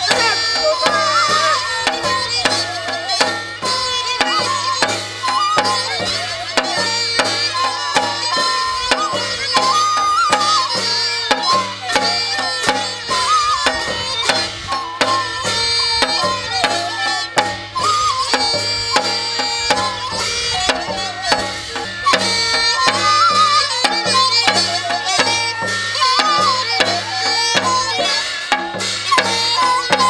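Korean shamanic ritual (gut) music: a hand drum beating a fast, steady rhythm, with a melodic instrument playing a wavering, bending tune over it.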